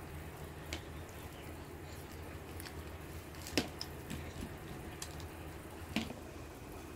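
Quiet eating by hand: fingers scooping chutney from a clay bowl with pieces of roti. It makes a few sharp clicks, the two loudest about three and a half and six seconds in, over a low steady hum.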